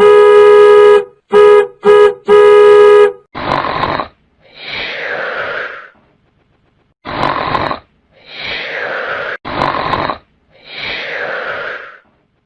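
Car horn honking: one long blast, two short toots and another long blast. It is followed by a comic snoring effect: about three snores, each a rasping breath in and then a longer breath out that whistles downward in pitch.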